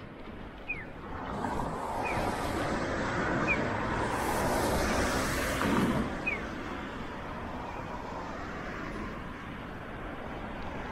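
A road vehicle passing by, its engine and tyre noise swelling over a few seconds to a peak about halfway through, then fading.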